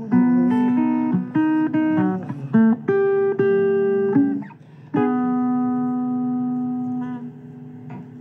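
Blues guitar playing the closing phrase of a song: a run of single plucked notes, then a final chord struck about five seconds in and left to ring, dying away near the end.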